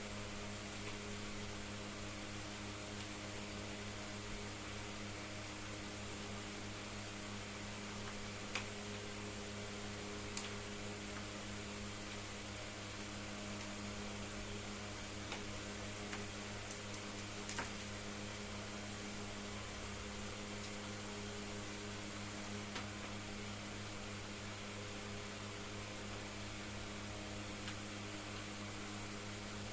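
Steady electrical hum with a constant hiss, broken by a few faint, brief clicks or taps.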